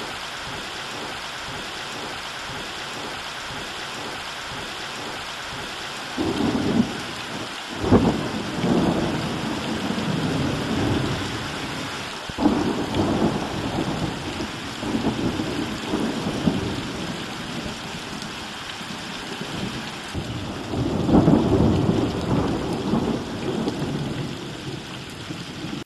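A real thunderstorm: steady rain hissing, joined after about six seconds by repeated rolls of thunder with a couple of sharp cracks, and another long heavy roll later on.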